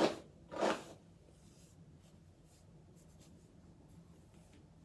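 Paddle hairbrush swept through a curly wig: two quick brushing strokes in the first second, then only faint rustling.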